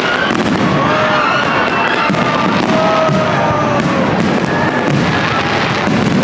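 Aerial fireworks display crackling and bursting in a dense, continuous barrage, with music over it.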